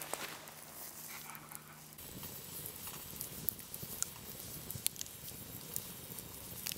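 Campfire crackling: scattered sharp pops and snaps from burning wood and embers over a faint steady hiss.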